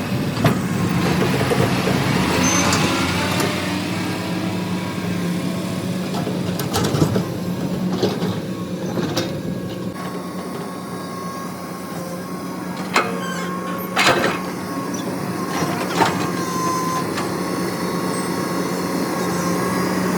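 Heavy diesel vehicle engine running steadily, with a few sharp clanks now and then.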